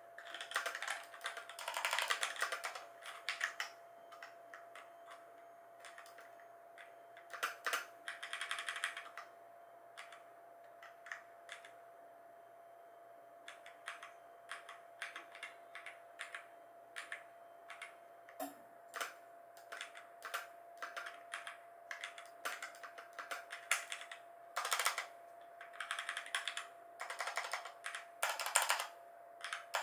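Typing on a Razer BlackWidow Lite mechanical keyboard with Razer Orange tactile switches: fast runs of key clacks, with a quieter stretch of slower, scattered keystrokes in the middle.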